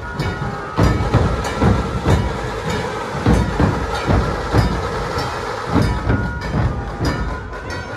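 Dhol tasha pathak playing: large barrel-shaped dhol drums beaten in a steady, driving rhythm, with the sharp rattle of tasha drums over them.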